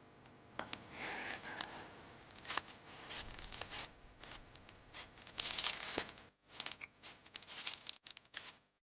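Rustling and crinkling with scattered light clicks, then an abrupt cut to silence near the end.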